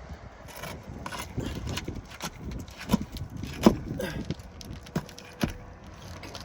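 Irregular knocks, clicks and scraping from prying a damaged asphalt roof shingle loose and pulling its nails, with a few sharper knocks in the second half.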